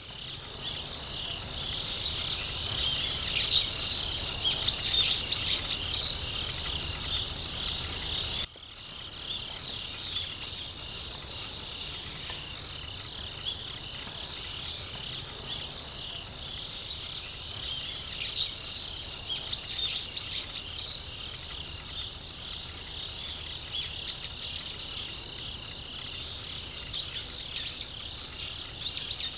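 Woodland ambience: birds chirping and calling over a steady high-pitched background chorus, with a brief break about eight seconds in.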